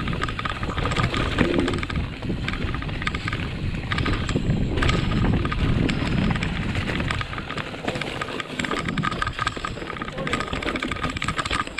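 Mountain bike riding down a forest singletrack: tyres rolling over dirt and roots with a continual rattle and clatter of the bike over bumps, louder in the first half and easing about seven seconds in.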